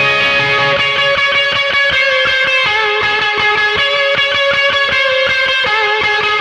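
Electric guitar played through a Strymon BigSky reverb pedal on a plate reverb setting: quick rhythmic chord strokes over ringing, sustained notes.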